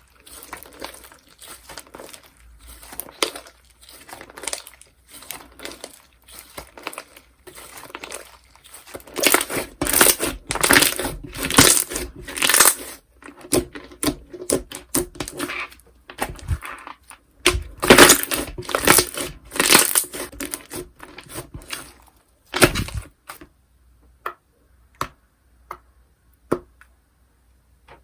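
Slime being squeezed, pressed and stretched by hand, a dense run of sticky crackling and popping clicks. It comes in heavier bouts about a third of the way in and again about two-thirds in, and thins to scattered single pops near the end.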